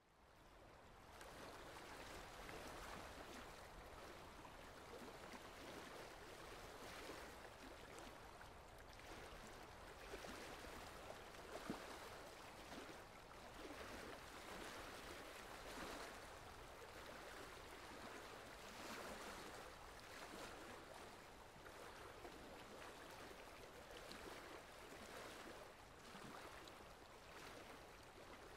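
Faint, steady sound of running water, like a stream, fading in just after the start and holding evenly with gentle swells.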